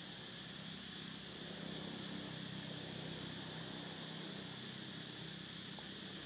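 Steady outdoor ambience: an even, high-pitched drone over a low, steady engine-like hum, with no distinct calls or knocks.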